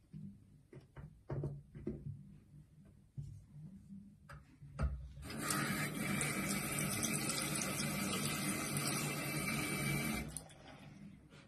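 Bathroom sink mixer tap running into the basin for about five seconds, starting about halfway through and stopping about a second before the end. A few light knocks come before it.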